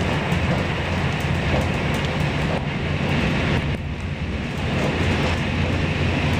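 Steady running noise of a passenger train heard from inside the carriage: a low rumble with wheel-on-rail noise, dipping briefly about four seconds in.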